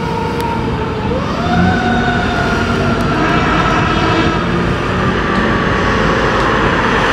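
Fire engine siren winding down in pitch. About a second in it is wound back up quickly, then coasts slowly down again over the pumper's engine rumble and traffic noise.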